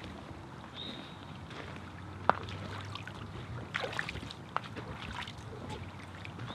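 Boots splashing and sloshing step by step through a shallow, rocky creek, with a single sharp knock about two seconds in and a few lighter clicks later on.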